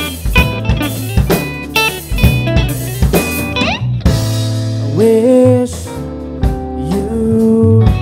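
Live rock band playing: electric guitar over a drum kit, with steady drum hits in the first half, a quick slide up in pitch near the middle, then long held lead notes that bend in pitch.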